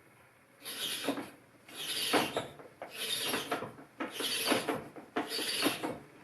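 Helicoil insert tap cutting thread in a cast-iron exhaust manifold, worked round by a tap wrench: a dry scraping rasp with each stroke, five strokes about a second apart, starting just under a second in.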